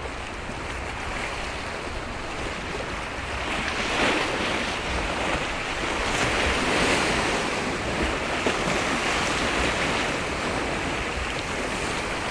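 Strong wind gusting over the microphone, a rushing noise that swells about four seconds in and stays up.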